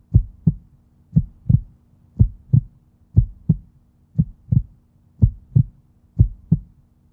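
Heartbeat sound effect: pairs of low thumps, about one pair a second, over a faint steady hum.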